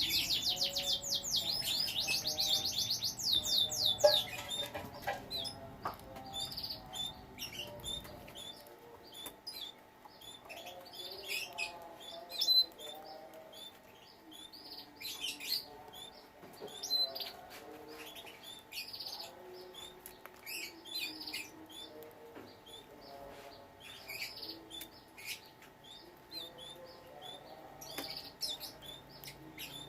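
Domestic canaries singing and calling: a rapid, loud trilling song in the first few seconds, then scattered short chirps.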